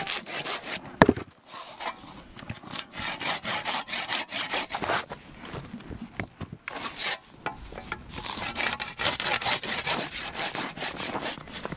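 Hand saw cutting through frozen fish on a wooden block: repeated rasping back-and-forth strokes, with one sharp knock about a second in.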